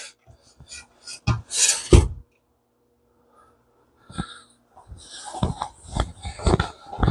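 Low-frequency split-phase inverter running a house load, its transformer giving a faint steady hum. Over it come irregular knocks and thuds, in a cluster at the start and again from about four seconds in, with a quiet gap between.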